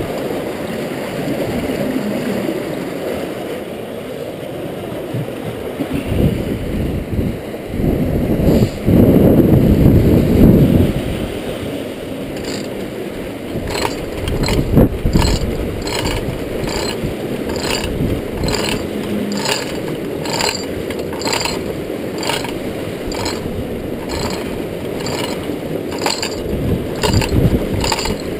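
Rushing river water churning through a rotary screw fish trap. From about halfway through, a hand-pulled manual chain hoist ratchets with a click about once a second.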